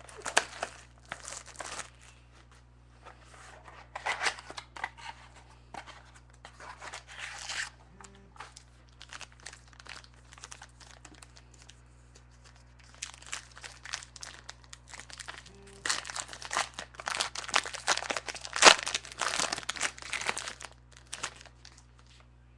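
A sealed trading-card mini box being opened by hand: its wrapping torn and crinkled in scattered bursts, busiest in the last third, with one sharp snap a little past two-thirds through.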